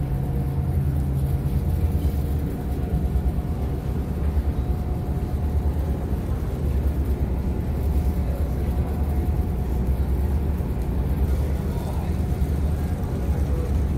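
Low, steady rumble of a Staten Island ferry's engines and machinery running while the boat sits at the dock, with a faint steady hum above it.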